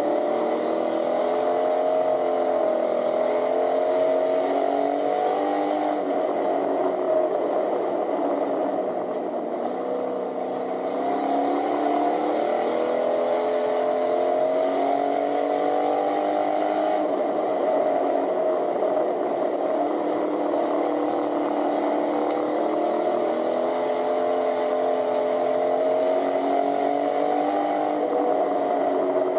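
Pure stock dirt-track race car's engine heard from inside the cockpit at racing speed. Its pitch drops off twice, about ten seconds apart, and climbs back each time, as the car is throttled down for the turns and back up on the straights.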